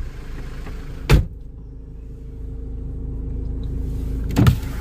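A car door slammed shut with a thump about a second in, after which the outside noise is cut off and only the car's engine idling low is left. Another thump comes near the end.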